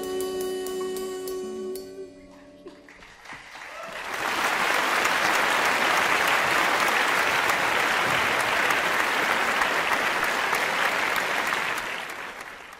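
A live band's final held chord rings on and dies away; after a short pause the audience applauds, loud and steady, tapering off near the end.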